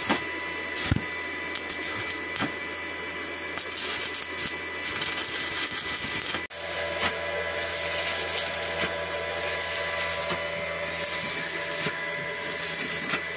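A steady machine hum with a faint high whine and scattered light clicks and knocks, briefly interrupted about halfway through.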